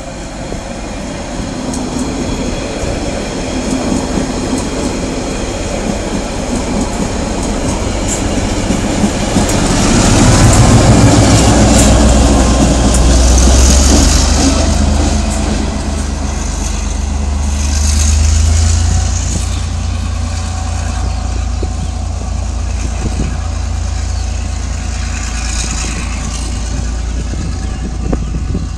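A DC class diesel-electric locomotive hauling passenger carriages runs through the station, building to a loud rumble with its deep engine drone about ten seconds in. The carriage wheels roll and clatter on the rails after it, swelling again a few times as the train draws away. At the start, a diesel multiple unit is rolling past.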